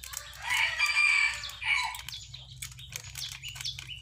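A rooster crows once, a single call of about a second and a half starting just after the beginning, the loudest sound here, with small birds chirping around it.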